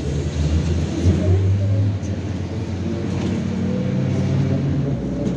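MAZ-103 city bus engine heard from inside the passenger cabin while the bus drives along. The engine rises in pitch from about halfway through as it picks up speed.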